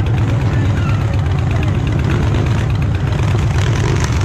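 Motorcycle engines idling close by: a steady low rumble.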